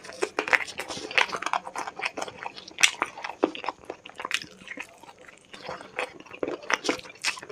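Close-miked chewing and biting while eating chicken curry with rice: irregular wet mouth smacks and crunches.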